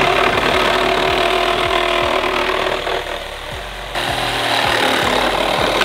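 Milwaukee Fuel compact cordless reciprocating saw cutting through the car's lower front structure. It eases off for about a second midway, then picks up again and stops at the end.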